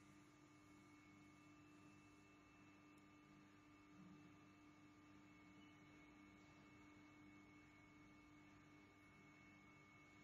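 Near silence with a faint steady hum of a few held tones.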